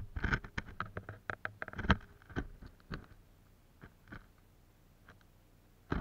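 Handling noise close to the microphone as tripod and camera gear are moved: a quick run of clicks, knocks and scrapes, thickest in the first three seconds with the loudest knock about two seconds in, then a few scattered ticks and a sharp knock at the end.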